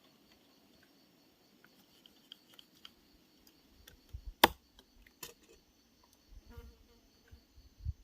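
Scattered light clicks and taps, with one sharp, loud click about halfway through, another a moment later, and a few low thumps.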